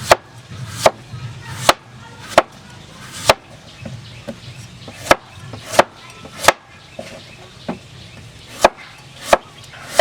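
Knife chopping food on a cutting board: about a dozen sharp, evenly paced strokes, a little over one a second, a few of them lighter than the rest.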